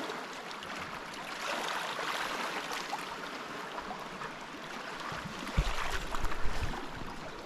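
Small waves lapping and splashing at a rocky lake shoreline, a steady watery wash. A few low thumps near the end, and the sound cuts off suddenly at the close.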